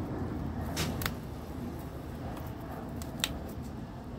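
Dead Venus flytrap leaves being pulled off the rhizome by hand, giving short crisp snaps: two close together about a second in and one more a little after three seconds.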